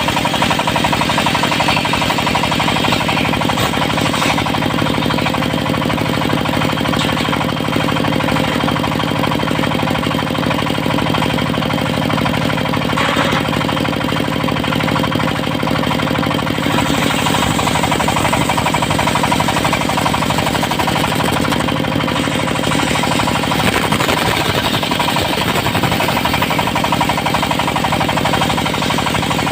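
Diesel-driven portable circular-saw sawmill running steadily with a fast, even knocking from the engine, while the blade rips teak into beams.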